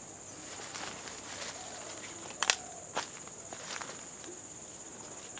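Footsteps moving through forest undergrowth, with scattered sharp cracks, the loudest about halfway through. Under them a steady high-pitched insect drone.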